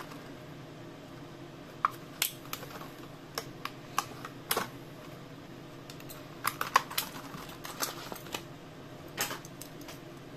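Plastic blister and cardboard backing card crackling and clicking in irregular bursts as a carded Matchbox toy is pried out of its packaging by hand.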